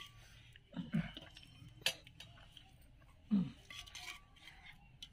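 Steel spoon clinking and scraping in a steel bowl of chickpea curry, with one sharp clink about two seconds in. Two short voice sounds come about a second in and just past three seconds.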